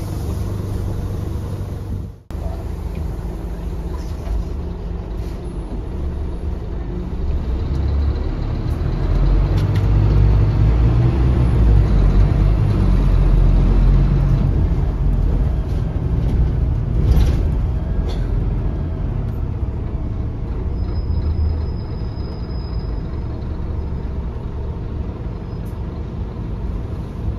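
Scania DC9 five-cylinder diesel engine of a Scania K280UB bus, heard from inside the passenger cabin while the bus is driven, running with a low steady rumble. It gets louder for about ten seconds in the middle, then settles back.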